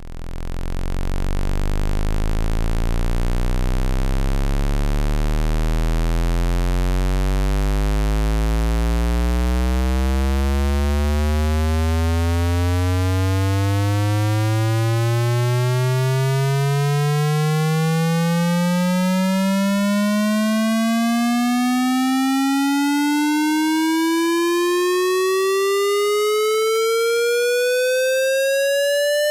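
Electronic tone, rich in overtones, gliding slowly and steadily upward in pitch from a deep buzz to a high whine. It swells in over the first second or two.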